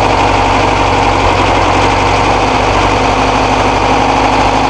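A VW Type 2 bus's 1600 air-cooled flat-four engine idling steadily, running again after seven years laid up.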